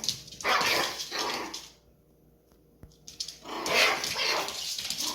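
A dog barking and growling in two loud stretches, with a short quiet pause between them.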